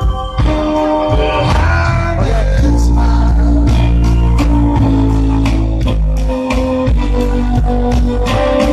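Live band playing amplified music with guitar, bass and drums.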